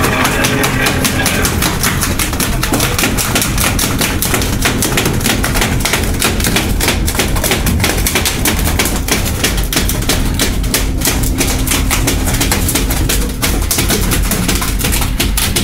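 Freshly landed bluefin tuna beating its tail against the fish hold in a rapid, steady tapping, several taps a second, over a low steady hum.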